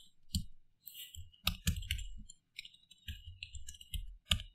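Computer keyboard typing: an irregular run of key clicks, with a few louder strokes about a second and a half in and again near the end.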